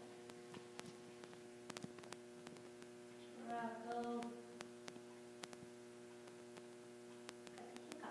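Steady electrical mains hum with faint scattered clicks. About three and a half seconds in there is a brief two-part pitched sound.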